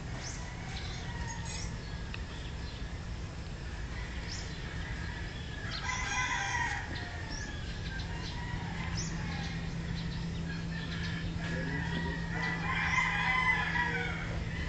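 Animal calls in the background: a louder call about six seconds in and a longer one near the end, with short chirps between them, over a steady low hum.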